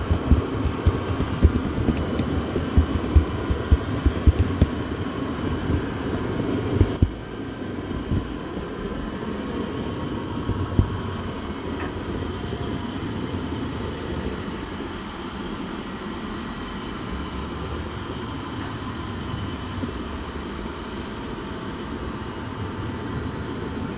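A train running on rails: a steady low rumble with irregular sharp knocks for the first several seconds, then a smoother, slightly quieter rumble with only the odd click.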